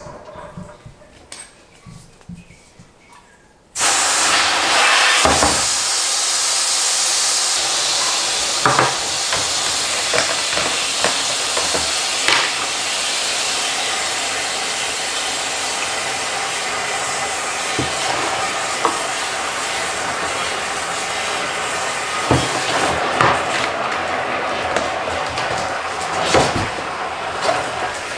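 Water running from a hose into an aeroponic tower garden's reservoir: a steady loud hiss that starts abruptly about four seconds in, with occasional light knocks.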